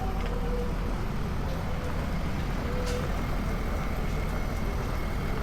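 Steady low rumble of vehicles at a railway level crossing. A crossing alarm's warning tones break off within the first half second.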